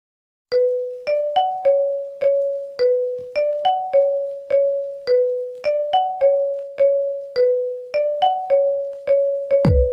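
A ringtone melody of single electric-piano-like notes, each struck and dying away, about two a second. It starts half a second in and loops a short phrase of a few nearby pitches three times. Just before the end a different tune cuts in with deep bass notes.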